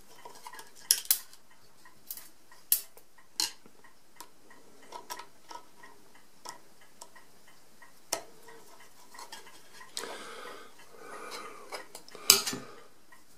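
Screwdriver working small crosshead screws out of the steel front bar of an Addo Multo mechanical calculator: scattered sharp metal clicks and clinks with light scraping in between, the loudest clink near the end.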